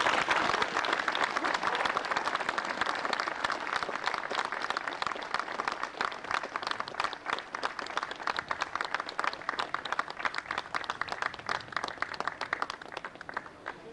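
A crowd applauding. The clapping is densest and loudest at the start, then thins into fewer, separate claps as it dies away toward the end.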